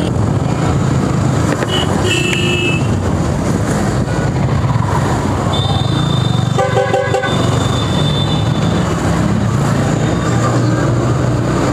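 Motorcycle running steadily at road speed with road and wind noise, and a vehicle horn honking once, for under a second, a little past halfway.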